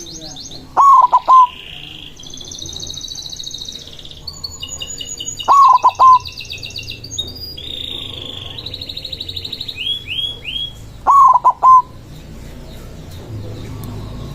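White zebra dove (perkutut putih) cooing three times, about five seconds apart, each coo a short loud phrase of quick notes. Small songbirds chirp and trill behind it.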